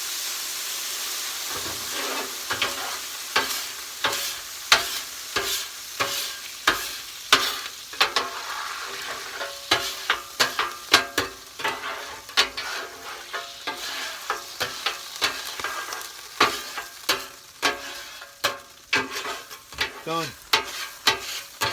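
Water sizzling and steaming on a hot flattop griddle, with a scraper dragged across the surface in many short, sharp strokes from about two seconds in, pushing the steaming residue off the grill.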